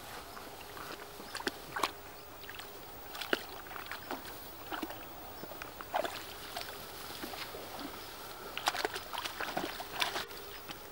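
Puppies wading and paddling in shallow pond water: irregular small splashes and sloshes, with some rustling through the grass at the water's edge.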